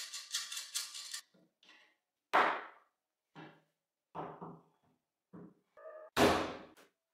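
Workshop assembly knocks: steel brackets, bolts and a spanner clattering and knocking on a wooden lathe frame. A quick rattle of clicks opens it, then come separate knocks, a loud one about two seconds in and the loudest near the end.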